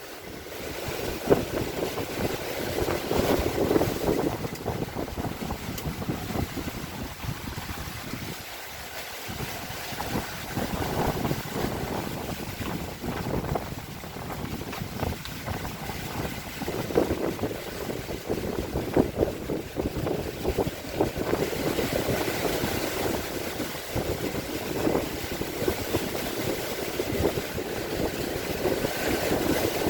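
Strong wind gusting and buffeting the microphone in uneven surges.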